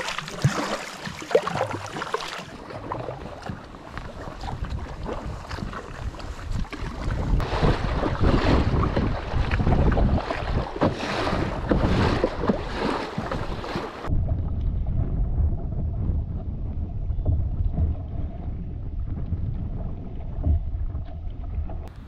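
Wind and choppy lake water rushing and splashing along a canoe's hull as it is paddled through waves, with wind buffeting the microphone and the water noise rising and falling in repeated surges. About two-thirds of the way in, the hiss and splashing stop abruptly, leaving only a low wind rumble.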